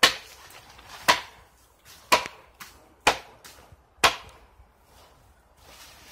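Machete chopping into a tree trunk: five sharp strikes about a second apart, stopping about four seconds in.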